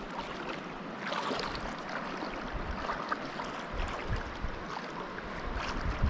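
Rushing water of a fast-flowing mountain stream, a steady hiss, with a few low thumps about two thirds of the way through.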